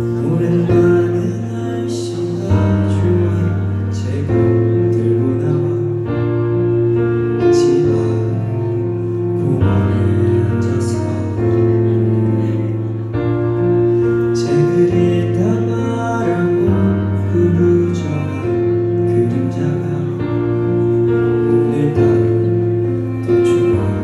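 A man singing a slow song into a handheld microphone, amplified over the venue's sound system, with instrumental accompaniment whose bass notes change every couple of seconds.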